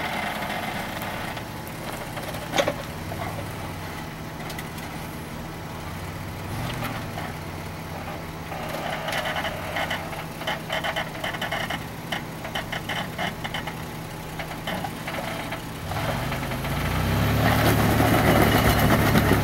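A 4x4 SUV's 3-litre V6 engine idling and working at low revs as the vehicle crawls over a rock ledge. It revs up under load near the end, and there is a single sharp knock a few seconds in.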